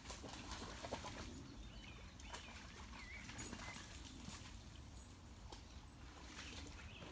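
Faint splashing, rustling and scuffing as a man and a dog move through shallow stream water and long grass while playing ball, with scattered short knocks and a few short chirps.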